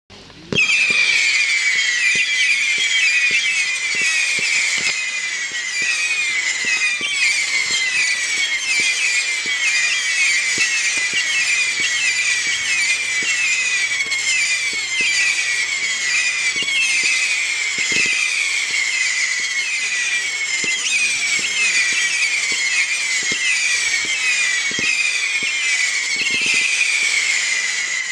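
P7071 'Fire Storm' whistling firework going off: it starts suddenly about half a second in, then gives a dense, unbroken stream of overlapping shrill whistles, each falling in pitch, several a second.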